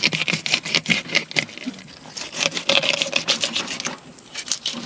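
Rapid, irregular clicking and clattering of small hard objects being handled, with a short lull near the end.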